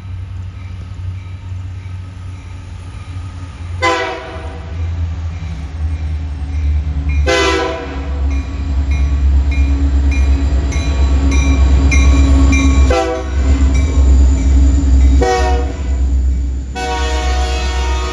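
Two CN diesel freight locomotives approaching, their engine rumble growing louder, while the horn sounds a short blast about four seconds in, then a string of long and shorter blasts from about seven seconds on.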